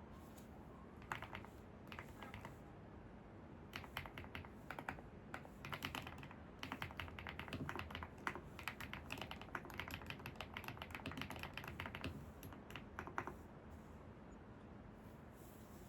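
Computer keyboard typing: a few scattered keystrokes, then a long run of fast keystrokes that stops a few seconds before the end, over faint steady background noise.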